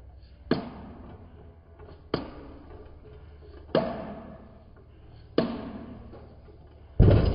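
Four evenly spaced mallet blows on the top of a CYC X1 Pro electric mid-drive motor, each a sharp knock with a short ring, driving the rotor out of the stator. A louder, longer thud comes near the end.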